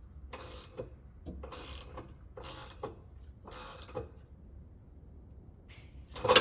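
A 14 mm ratcheting wrench clicking in about four short strokes roughly a second apart as it runs a shock absorber's top nut down hand-snug. After a pause there is a sharp knock near the end.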